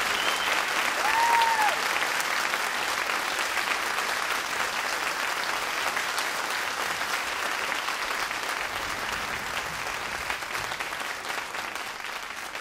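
A crowd applauding, a dense steady clapping that slowly fades toward the end.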